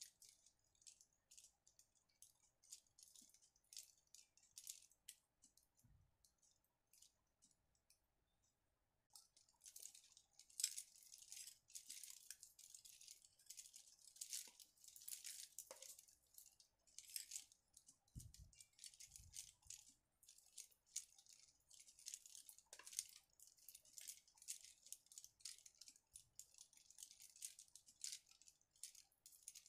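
Faint rattling and clicking of stiff plastic flower petals knocking against each other as a bunch of handmade lilies is shaken and turned by hand, stopping for about a second and a half early on before going on again.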